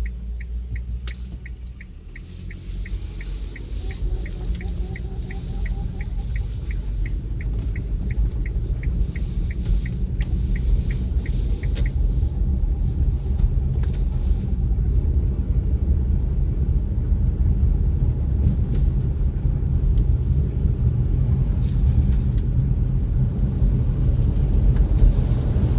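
A third-generation Kia Sportage driving on a frosty road, with low road and engine rumble. For about the first twelve seconds a short, high squeak repeats evenly, about three times a second, then stops. This is the cold-weather squeak the owner hears when setting off in frost below about −10 °C, which goes away once the car passes roughly 20 km/h.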